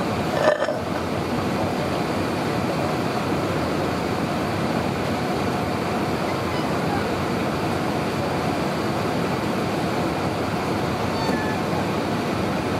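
Steady cabin noise of an airliner in flight: an even rush of engines and airflow heard from inside the cabin. A brief knock about half a second in.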